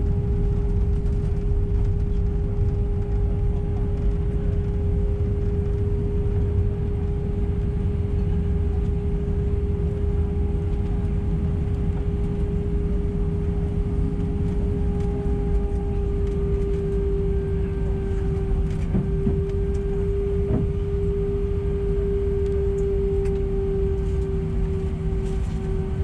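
Airliner cabin noise of an Airbus A319: a steady deep rumble with a steady engine tone from its CFM engines, the tone rising slightly about two-thirds of the way through.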